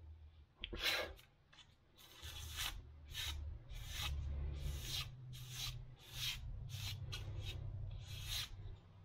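Fingers rubbing and brushing along the freshly burn-cut feathers of an arrow's fletching in quick strokes, about two a second, after a single sharp click about a second in.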